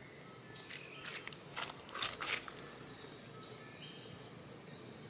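Outdoor ambience with birds chirping faintly, and a cluster of short crackles and scuffs in the middle, the loudest about two seconds in.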